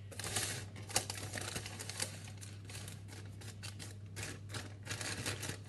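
A spoon scraping and tapping as cake mixture is spread into a baking tin lined with greaseproof paper, the paper crinkling, in quick irregular strokes. A steady low hum runs underneath.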